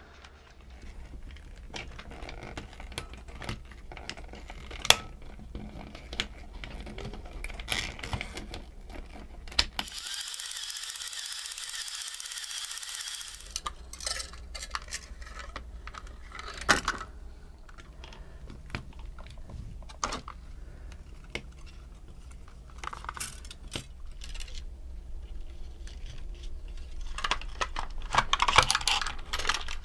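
Hands handling and fitting the plastic parts of a small toy RC tank: scattered clicks, taps and rustling of plastic. A few seconds of steady hiss come about a third of the way in, and the handling grows louder near the end.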